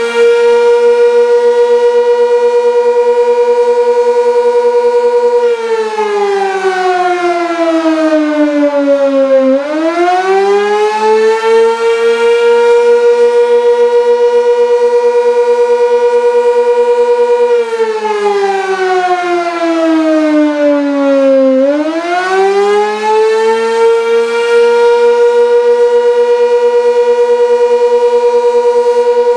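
Sentry 16V1T-B outdoor warning siren sounding the Attack signal. It holds a steady wail for about five seconds, sags lower over about four seconds, then winds back up to the same pitch, twice over.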